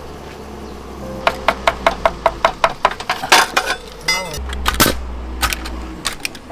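Rapid hammer blows, about five a second for a couple of seconds, followed by a few slower single strikes, during timber work on a hanok.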